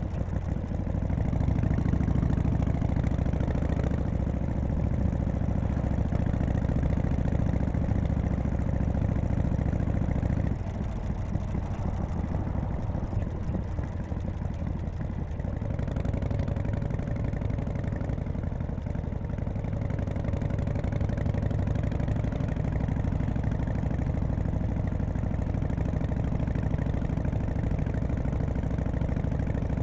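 1991 Harley-Davidson FXSTC Softail's Evolution V-twin running under way. It is loud and full for about the first ten seconds, then eases off to a lighter, quieter running, with a faint thin steady whine above it in the second half.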